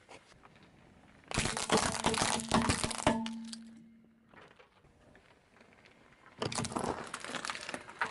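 Car tyre rolling over and crushing small objects, crackling and crunching in two bursts: the first about a second in, lasting nearly two seconds, the second near the end.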